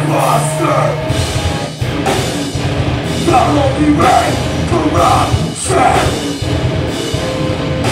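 Heavy rock band playing live: distorted electric guitars, bass and drum kit, with a vocalist shouting into the microphone in bursts every second or two.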